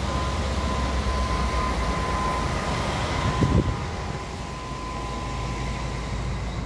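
City bus engine idling: a steady low rumble with a faint high whine over it, and one thump about three and a half seconds in.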